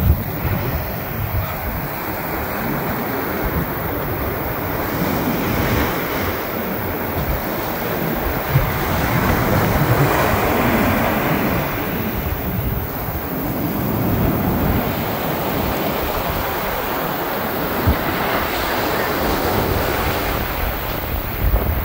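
Ocean surf breaking on the shore: a continuous wash of waves that swells and eases every few seconds, with wind buffeting the microphone.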